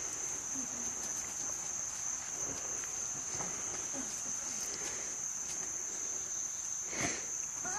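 Insects trilling steadily outdoors: one continuous high-pitched trill, with a brief faint knock about seven seconds in.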